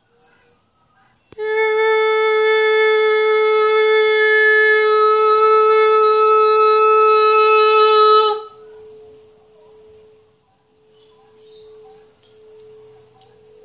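A woman's voice holds one steady overtone-sung note into a Tibetan singing bowl, starting about a second in and cutting off sharply after about seven seconds. The bowl then rings on faintly at the same pitch, slowly pulsing as it fades, set into sympathetic vibration by the voice.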